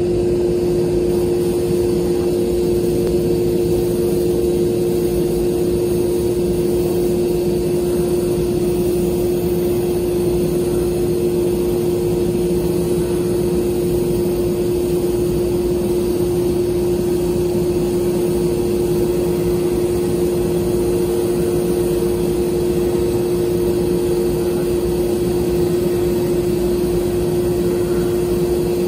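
Sandblasting cabinet running while the nozzle blasts abrasive grit onto a masked glass: a steady, unchanging hum with a hiss beneath.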